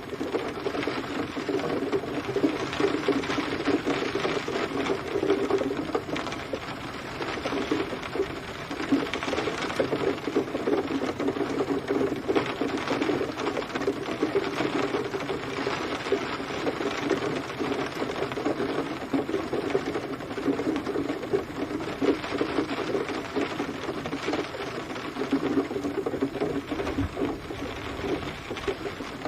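Rain falling steadily, a dense rapid pattering of drops on a hard surface.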